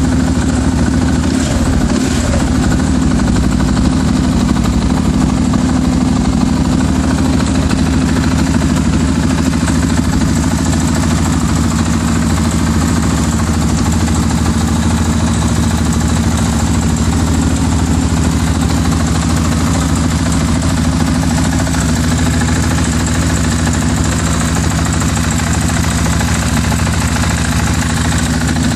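KTM 690 SM's single-cylinder engine idling steadily through an Akrapovic titanium slip-on exhaust.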